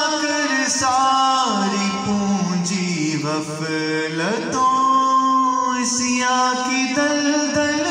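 A man singing a naat live into a handheld microphone, without words here: long held notes joined by slow melismatic slides, one falling about a second and a half in and one rising a little after four seconds.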